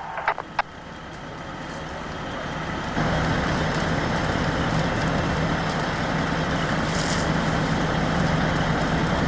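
A few sharp clicks, then rushing noise that swells and, about three seconds in, jumps up to a steady level. Under it a fire truck's engine gives a constant low hum.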